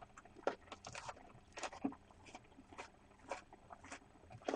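Kitchen knife chopping green chili peppers on a cutting board: irregular knocks of the blade against the board, about two a second.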